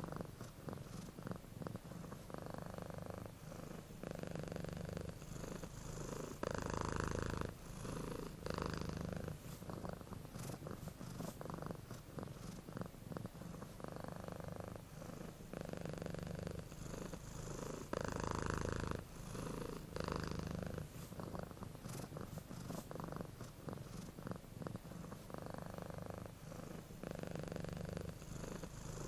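Domestic cat purring steadily. The purr swells and eases in an even rhythm, about every couple of seconds, as the cat breathes in and out.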